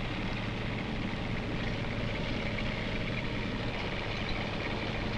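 Tank engine and tracks running steadily as the tank drives along a road, an even continuous noise with no breaks.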